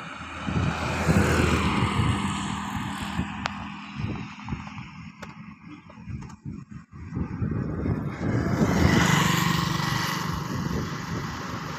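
Two road vehicles pass close by, one after the other, the first about a second in and the second about nine seconds in. Each swells and fades with a steady engine hum and tyre noise, with a quieter lull between them.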